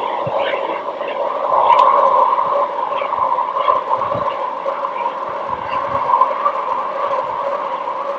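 NASA 'planet sound' recording, spacecraft-measured space data turned into audio, playing as a steady, noisy drone in two pitches, with occasional soft low thumps.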